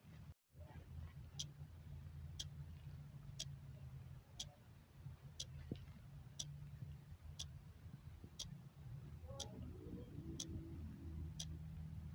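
Clock ticking steadily, one sharp light tick a second, over a low steady background rumble; the sound cuts out for a moment just after the start.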